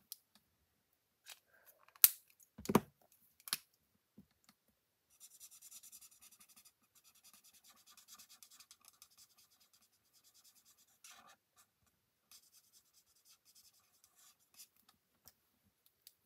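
Marker tip scratching faintly on cardstock as a stamped sleigh is coloured in with a dark blue marker. A few sharp clicks and knocks come about two to three seconds in.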